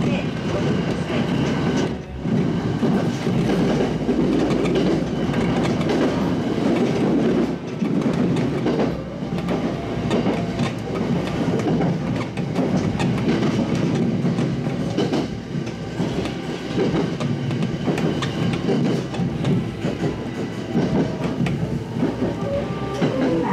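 Local electric train running on its rails, heard from the front of the car: a steady rumble and clatter of wheels on track as it runs in past station platforms.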